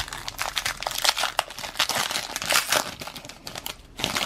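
Foil trading-card pack being torn open and its wrapper crinkled in the hands: a dense, irregular crackling with a short lull about three and a half seconds in.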